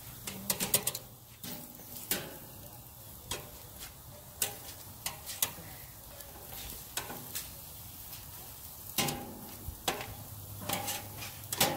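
Meat sizzling on a barbecue grill with a steady hiss, and a dozen or so sharp clicks and clinks scattered through it.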